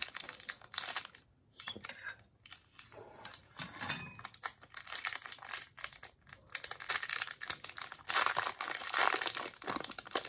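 Crinkling and tearing of a ration chocolate bar's camouflage-printed wrapper as it is torn open and unwrapped by hand, irregular crackles throughout and loudest near the end.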